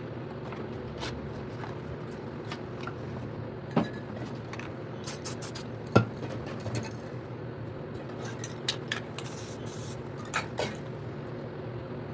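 Short hisses of an aerosol spray paint can, mixed with sharp clicks and knocks of cans and tools being handled, over a steady low hum. The loudest knock comes about six seconds in.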